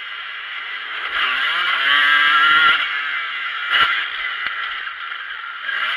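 Motocross bike engine heard from an onboard camera, revving up through a gear over about two seconds, then dropping, with wind and track noise. A sharp knock comes about four seconds in, and the engine picks up again near the end.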